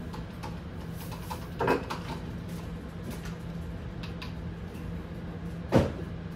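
Kitchen clatter: two short knocks, the second one louder and heavier, over a steady low hum.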